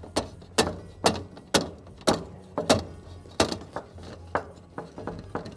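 A frozen-shut latch being yanked and knocked to work it loose: a run of sharp metallic knocks and rattles, roughly two a second, somewhat irregular.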